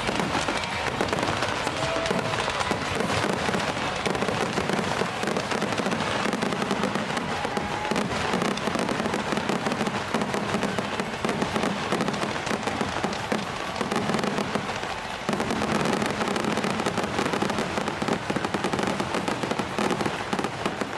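Fireworks going off in a dense, continuous barrage of bangs and crackles, with music playing underneath.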